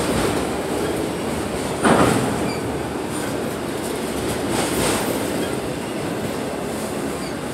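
Freight train's autorack car-transporters and boxcars rolling past close by: a steady rumble and clatter of steel wheels on the rails, with a loud thump about two seconds in and a few faint, brief wheel squeaks.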